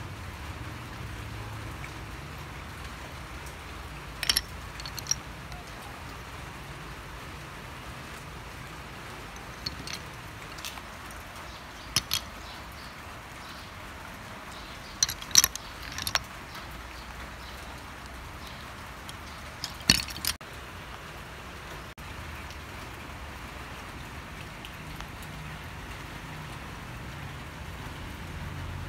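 Sharp, scattered clicks of a metal fork and sea snail shells knocking together as the meat is picked out of the shells, a handful spaced seconds apart, over a steady low background rumble.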